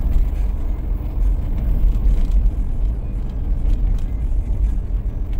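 Steady low rumble of engine and road noise from a moving vehicle.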